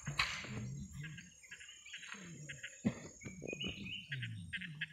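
Riverside jungle insects chirping in short repeated trills over a steady high insect drone, with a couple of sharp knocks and low murmuring voices underneath.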